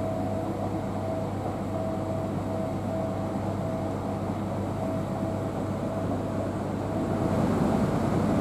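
Inside a Class 323 electric multiple unit running at speed: a steady running noise of the train with a constant low hum and a steady high-pitched tone, growing slightly louder near the end.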